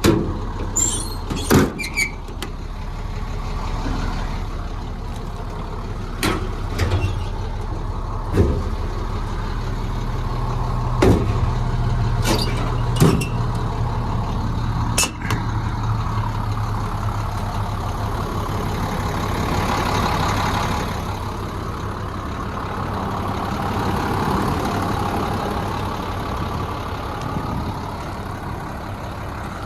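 An engine idling steadily with a low hum, under a series of sharp metal clicks and clunks from the service bed's toolbox compartment doors and latches, about ten in the first fifteen seconds. Later, a broader rush of noise rises and fades.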